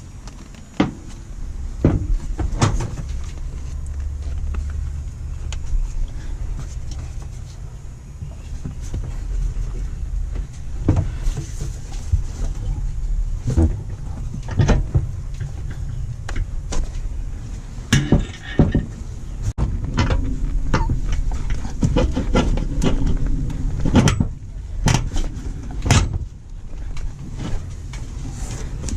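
Work on a car seat installation: irregular knocks, clanks and clicks of seat hardware and tools being handled, over a steady low hum.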